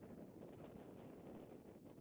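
Faint, steady wind rushing across the microphone.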